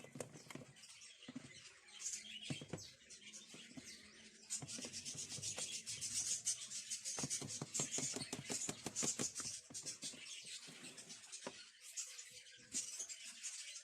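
A kitchen utensil scraping and stirring in a bowl with rapid, scratchy strokes, busiest through the middle of the stretch.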